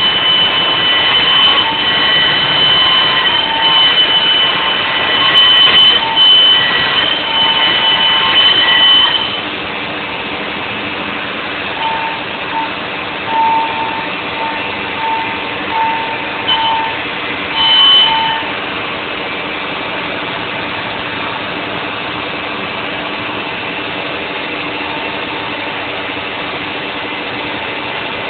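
CNC router spindle running while milling the cavities in a Stratocaster guitar body, a steady machine noise with a high whine. About nine seconds in the cutting sound drops to a quieter, even level, with short higher tones coming and going for a few seconds after that.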